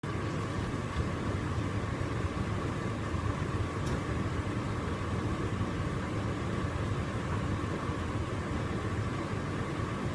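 Hotpoint tumble dryer running, its drum turning with a dog's bed inside: a steady hum and rush of air with a faint constant whine.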